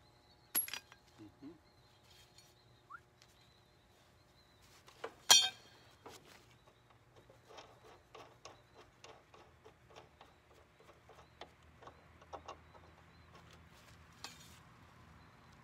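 Metal parts and tools being handled on a riding lawn mower during a hands-on repair. A sharp metallic clink about five seconds in is the loudest sound. A run of light clicks and ticks follows.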